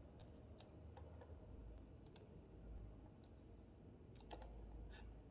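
Faint computer mouse clicks, about one a second, over near-silent room tone.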